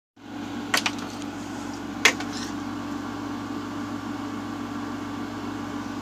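A steady, even hum with a few low tones, like a fan or appliance running in a small room, with a couple of short clicks about a second and two seconds in.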